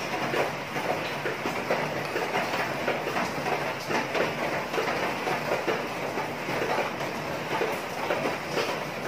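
Lemon-lime soda sauce with onion and garlic bubbling and sizzling hard in a frying pan around a whole fried chicken: a dense, steady crackle.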